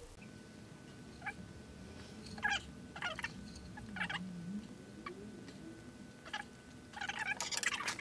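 Small clicks and light knocks of metal parts being handled as a new impeller is worked onto an outboard's driveshaft to find the keyway, with a faint wavering low hum underneath. A denser clatter of knocks and rustling near the end.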